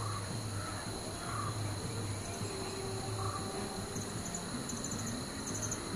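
Insects droning steadily and high-pitched, with a few rapid chirping trills from about four seconds in, over a low steady hum. No clear sound of the landing jet stands out.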